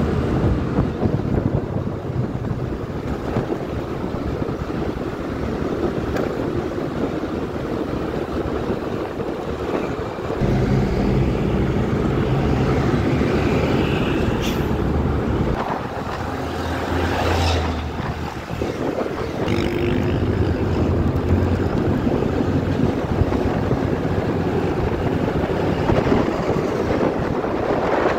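Motor scooter riding in traffic: wind noise on the microphone over the scooter's engine, whose note strengthens as the throttle opens about ten seconds in and again a few seconds later.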